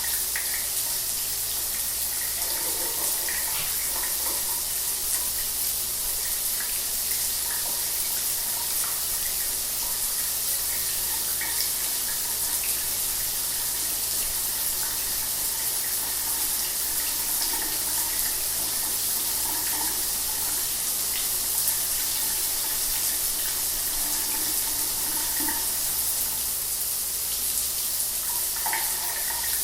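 Shower water running steadily, an even hiss of spray with faint splashing. A low steady hum lies underneath.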